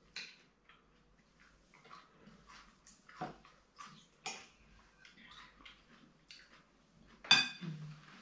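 Light clicks and scrapes of a metal fork on a plate while eating, scattered and quiet, with one louder sharp sound about seven seconds in.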